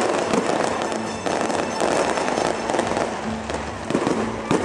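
Aerial fireworks going off in a dense, unbroken stream of pops and crackles, with music playing in the background.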